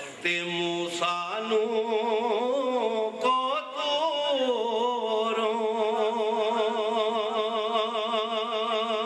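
A man singing devotional verse unaccompanied, holding long notes with a wide vibrato. The pitch climbs about three seconds in, then falls back and settles into one long held note.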